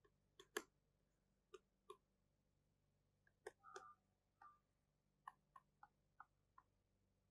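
Near silence with faint, irregular clicks of a stylus tapping on a tablet screen during handwriting, about a dozen taps spread unevenly.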